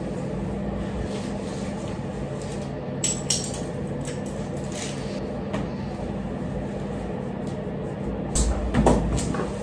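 Small clicks and rustles of clothes and accessories being handled while dressing, over a steady low hum; a louder cluster of rustles and knocks comes near the end.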